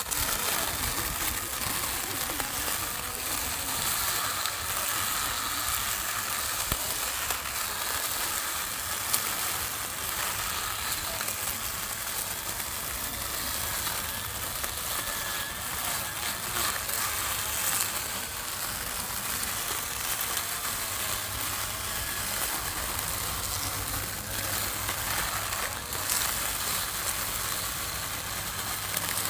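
Small lawn mower running and cutting grass: a steady, even hissing noise with no clear motor tone.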